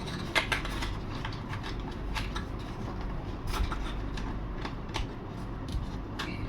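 Light clicks and rubbing from small parts being handled, as a metal latch is worked into the plastic cockpit of a model plane, with a click every second or so over a steady low hum.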